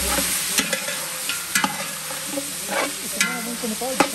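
Smoked duck and onions sizzling as they fry in a large metal pot while a long utensil stirs them. The steady sizzle is broken by sharp knocks and scrapes against the pot roughly every second.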